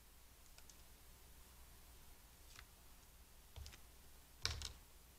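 Paper and card being handled on a craft mat: a few faint clicks and crinkles, with one louder click and tap about four and a half seconds in.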